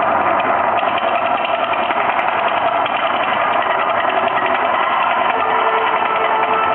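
Mirage volcano show attraction giving off a loud, steady rushing roar with no breaks.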